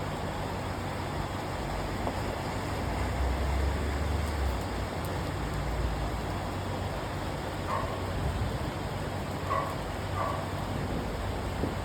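Steady hiss of heavy rain during a storm, with a low rumble about three seconds in that fades after a couple of seconds.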